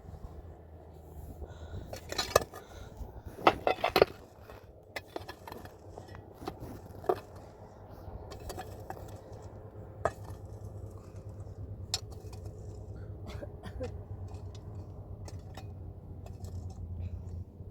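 Scattered light clinks and knocks of objects being handled, most of them a couple of seconds in, over a low steady hum.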